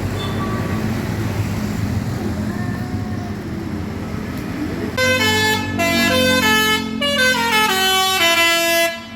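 A bus engine runs steadily, then about five seconds in a Basuri telolet horn plays a quick tune of stepped tones, ending in a falling run, and cuts off suddenly just before the end.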